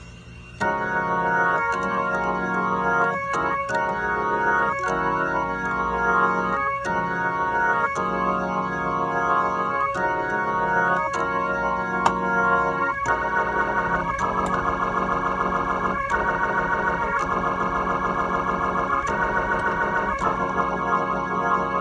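Organ chords played through a Leslie 2101 rotary speaker cabinet, held and changing every second or so. About 13 seconds in, the sound takes on a fast warble, the rotors spinning at fast speed.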